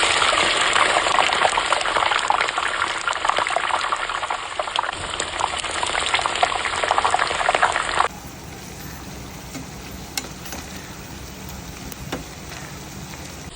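Food frying in hot oil: a loud, crackling sizzle that cuts off abruptly about eight seconds in, leaving a much quieter steady hiss with a few small clicks.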